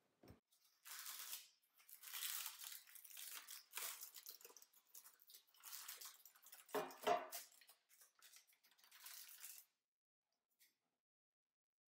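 Parchment paper crinkling and rustling as a baked loaf is lifted out of a metal loaf pan by its paper lining, with a dull knock about seven seconds in.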